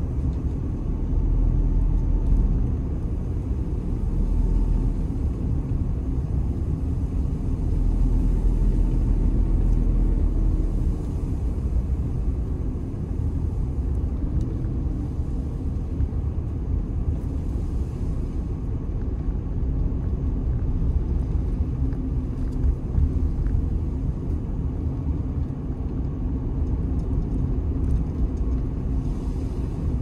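Car driving along a forest road, heard from inside the cabin: a steady low rumble of engine and tyres, louder for two short stretches in the first ten seconds or so.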